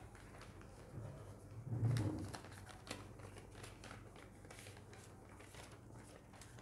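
Faint rustling and crinkling of paper ballots and envelopes being handled in a hand vote count, with small scattered clicks over a low steady hum.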